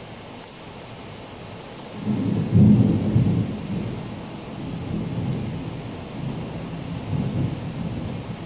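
Heavy monsoon rain falling steadily, with a loud thunderclap about two seconds in that rolls on as uneven rumbling through the rest.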